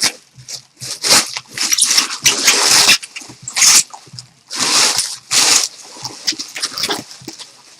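Irregular bursts of rustling and scraping as sealed trading-card packaging is handled and opened, with the loudest bursts about a second, two and a half, four and a half and five and a half seconds in.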